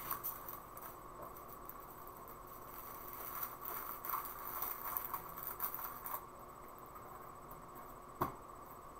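Faint handling noises on a tabletop: soft, irregular rustling for a few seconds in the middle, then a single sharp click near the end, over a steady faint hum.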